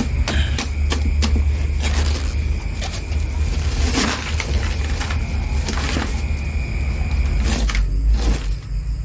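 Broken chunks of block ice knocking and crunching together as the plastic wrapping is pulled off and the pieces are handled in a plastic basin. There are a few sharp knocks in the first two seconds, then scattered knocks and rustling, over a steady low hum.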